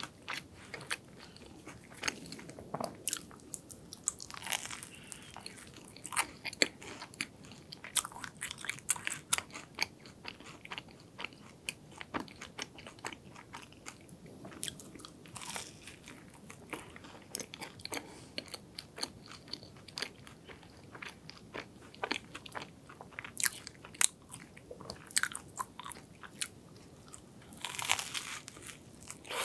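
Close-miked chewing and biting of a croffle: the crisp, flaky croissant-waffle crust crackles and crunches in many irregular sharp bites and chews, with a louder cluster of crunches near the end as a fresh bite is taken.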